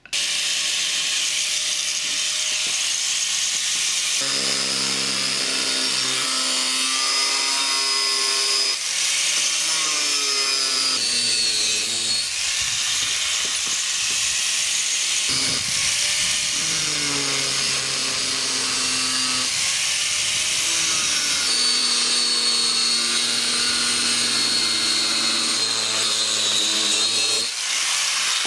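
Angle grinder with a cutting disc cutting through the steel blade of an old hoe: a steady hiss over the motor's whine. The whine sags and recovers several times as the disc is loaded. It starts suddenly and stops about a second before the end.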